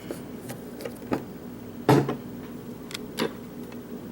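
Small metallic clicks and taps from a picked lock cylinder and lock-picking tools being handled, with one louder knock about two seconds in.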